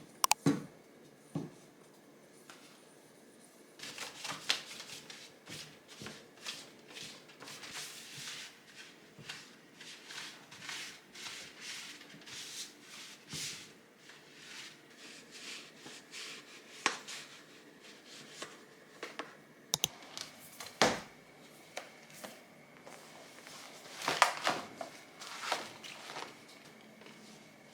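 Light handling sounds in a small room: rustling and scattered clicks and taps of objects being handled, louder near the end.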